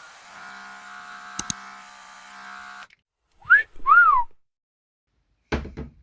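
Portable air-compressor facial mist sprayer running: a steady motor hum with a high whine, a double click about one and a half seconds in, cutting off just before three seconds. Then two short whistled notes, the loudest sounds here, the second rising and falling, and a brief low thump near the end.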